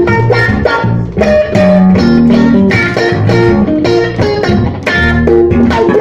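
Blues band playing instrumentally: electric guitar and bass guitar over a steady rhythm.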